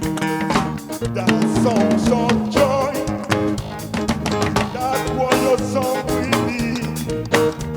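Upbeat music with a drum beat and a singing voice.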